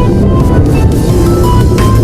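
Background music: an electronic track with short melodic notes over a heavy bass bed.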